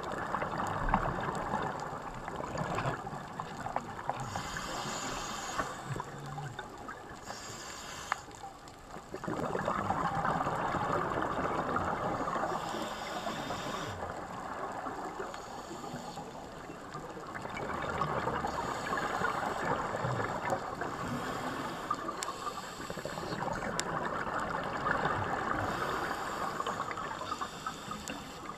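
Scuba diver's regulator breathing and exhaled bubbles heard underwater through the camera: a steady watery rushing, with a hiss every three to five seconds.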